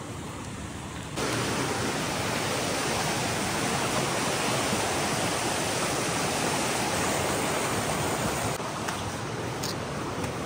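A fast, swollen, muddy river rushing over rocks and small rapids: a steady, loud rush of water that starts abruptly about a second in and eases somewhat near the end.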